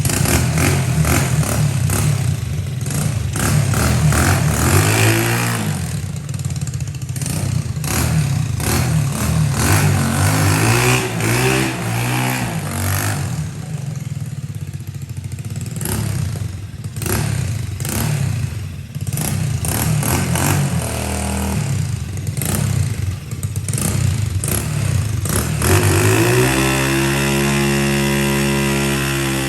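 Lifan 125 single-cylinder four-stroke engine in a Honda SL70 minibike being ridden and revved, its pitch rising and falling again and again with some clatter. Near the end it climbs to a high, steady rev, holds for a few seconds, then drops.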